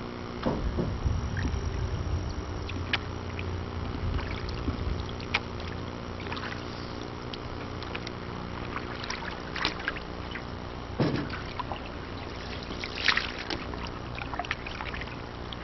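Canoe under way on a slow river: paddle dips, drips and scattered light knocks against the hull, with a louder knock near the middle, over a steady low hum.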